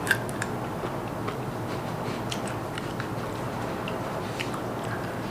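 A person chewing a raw green chilli close to the microphone: small crunches and wet mouth clicks at an uneven pace, with a sharper crunch just after the start.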